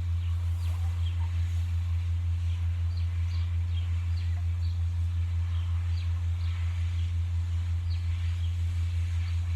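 A steady low hum, with many faint, short, high bird chirps scattered through it.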